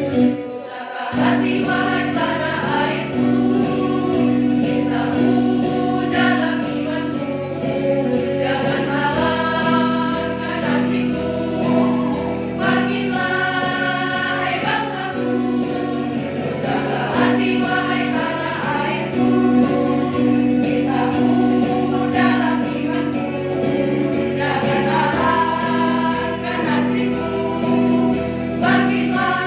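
Girls' choir singing in parts over a steady instrumental backing track.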